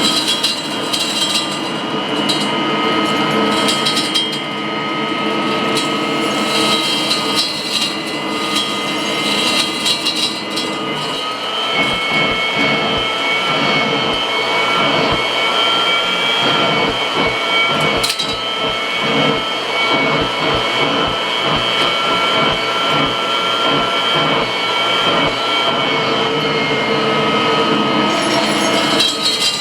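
Kirby upright vacuum cleaner running with the hose attached: a steady motor whine with high overtones. Crackly rattling sounds in roughly the first third, then a low, even pulsing of about two or three beats a second runs through the middle.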